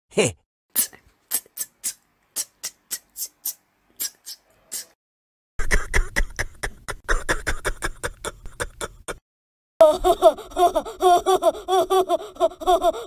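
Cartoon sound effects: a run of short sharp clicks, about three or four a second, thinning out and stopping, then a few seconds of rapid rattling noise, then a fast warbling chatter that repeats several times a second.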